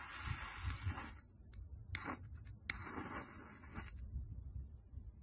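Striking attempts to light a fire for a small camping stove: a scraping hiss for about a second, then two sharp clicks, then softer scraping. The strikes fail to produce a flame.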